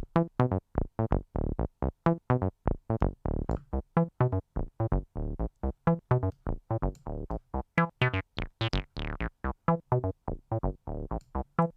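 Synthesizer acid bassline of short staccato notes, about four a second, flicked between a sawtooth wave (brighter, buzzier, more squelchy) and a square wave (warmer, rounder). About eight seconds in the notes turn much brighter for a second or so, with a falling resonant sweep.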